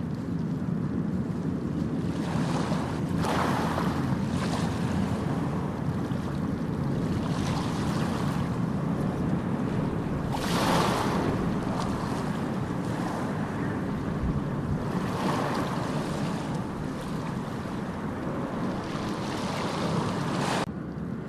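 Ocean surf on a beach: a steady low rumble with waves washing in every few seconds, the biggest about ten seconds in. The hiss of the surf cuts off suddenly just before the end.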